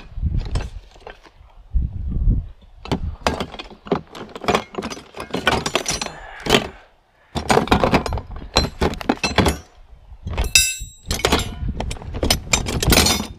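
Metal hand tools clattering and clinking as they are rummaged through, in a run of sharp knocks and rattles, with a short bright metallic jingle about ten seconds in.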